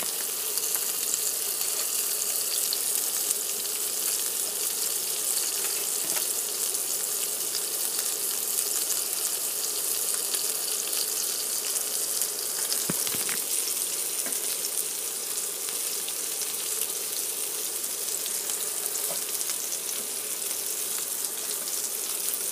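Hamburger patties and onions frying in a pan on an induction cooktop: a steady crackling sizzle, with one light tap about halfway through.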